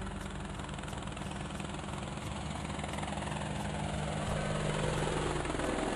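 Cartoon helicopter sound effect: rotor blades chopping about three times a second over a steady engine hum, growing gradually louder as the helicopter flies in.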